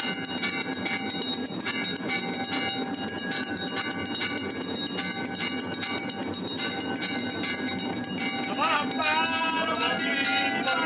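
Temple bells ringing without pause during an aarti, a dense, steady wash of ringing. About eight seconds in, voices start singing over it.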